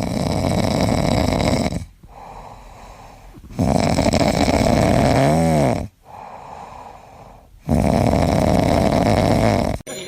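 A pet snoring loudly: three long rasping snores about four seconds apart, with quieter breaths out between them.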